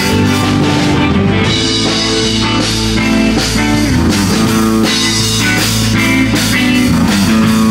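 Rock music with electric guitar and a drum kit, loud and steady.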